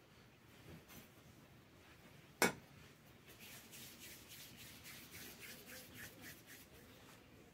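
Hands rubbing and shaping soft poğaça dough on a floured wooden board, a run of faint short strokes. One sharp knock about two and a half seconds in.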